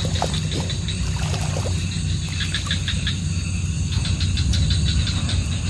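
Night insects chirping in quick rhythmic bursts over a steady low hum, with a few faint short sounds in between.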